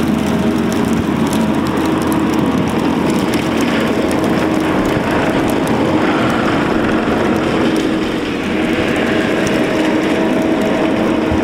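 Kubota SVL75 compact track loader's diesel engine running steadily, with a steady hum over the noise of the machine working.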